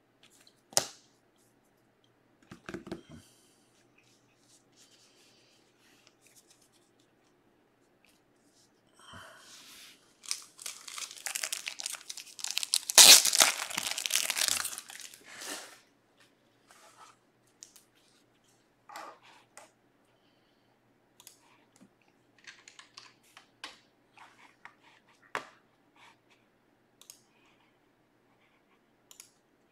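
Trading cards and their packaging handled at a table: scattered light clicks and taps, with a stretch of rustling and crinkling in the middle that is loudest about halfway through.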